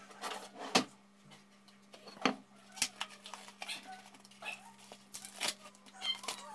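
Handling of a plastic-wrapped meat tray: sharp plastic clicks, crinkles and knocks as the tray is picked up and its film pulled, over a steady low hum.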